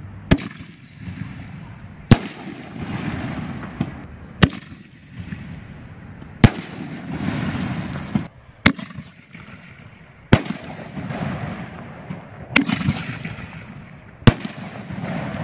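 5-inch aerial firework shells going off in a row: eight sharp booms about two seconds apart, each followed by a hiss.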